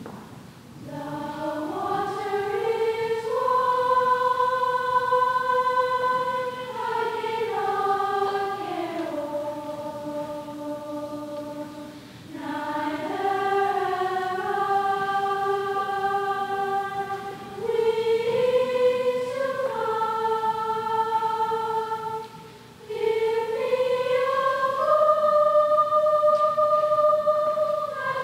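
Middle school chorus singing in long, slowly moving held notes, starting about a second in. The phrases break briefly for breath three times.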